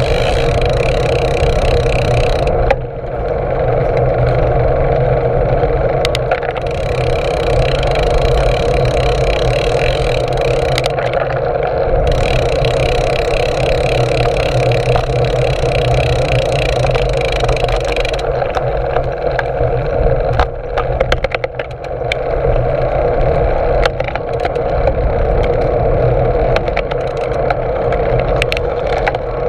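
Steady wind and tyre rumble from a bicycle being ridden, picked up by a GoPro on the handlebar stem, with a few short rattles and knocks over bumps about two-thirds of the way through.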